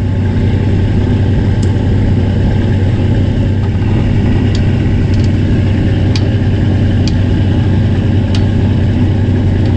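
Fishing boat's engine running steadily, a constant low hum. A few faint, sharp clicks sound at intervals over it.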